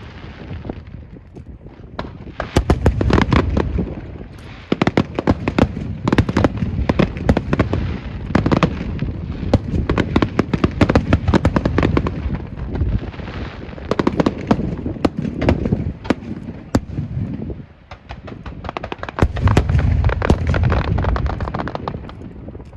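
Fireworks going off in rapid, dense volleys of cracks and bangs that swell and ease in waves, with brief lulls a couple of times.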